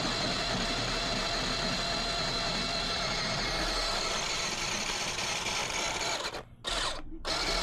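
A Margaritaville Maui On-the-go battery-powered portable drink machine's motor running with a steady whine, shaving ice at the start of its automatic cycle. The sound cuts out twice, briefly, near the end.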